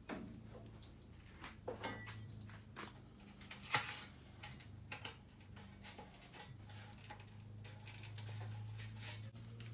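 Faint, scattered clicks and taps of hands handling a water bottle's cap at a motorcycle gas tank's filler neck, the sharpest about four seconds in, over a steady low hum.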